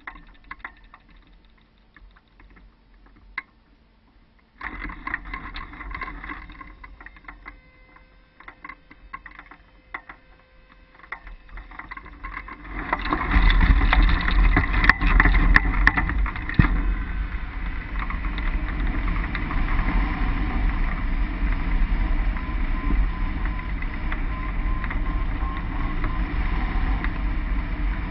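Wind rushing over a camera mounted on a hang glider's wing: light breeze with scattered clicks and rattles at first, then loud and steady from about halfway through as the glider runs down the slope and lifts off.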